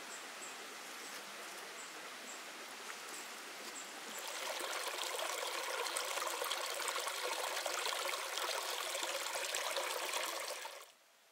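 Mountain stream running over rocks, a steady rush of water that gets louder about four seconds in and cuts off near the end. Faint high chirps repeat during the first few seconds.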